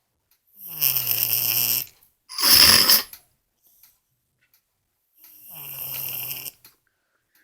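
Cat snoring: a low, pitched snore on the in-breath, a louder breathy out-breath right after it, then a second snoring in-breath about five seconds in.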